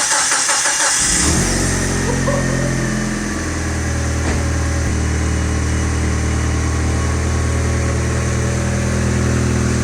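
Mitsubishi Lancer Evolution's turbocharged four-cylinder engine cranking on the starter and catching about a second in, on its first start after sitting for three and a half months. It runs unevenly for a second or two, then settles into a steady idle.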